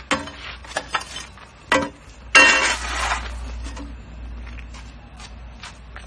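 Steel clanks and clinks from a QMR2-45 egg-laying block machine's frame and mould as it is worked, several sharp knocks with one loud ringing clang about two and a half seconds in.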